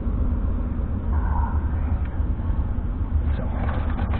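Steady low rumble of a stationary car, heard from inside the cabin.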